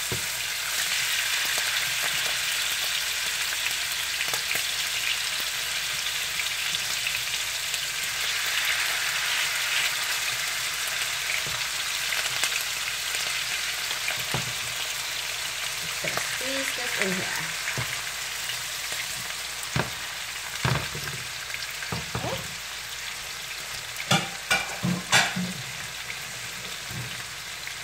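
Salmon pieces sizzling in hot oil in a nonstick frying pan as more pieces are laid in, a steady frying hiss. A few sharp knocks come near the end.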